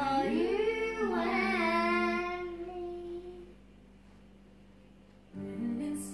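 A high, child-like voice singing a melody of long held notes that glide up and down, fading into a pause of about two seconds before the singing starts again near the end.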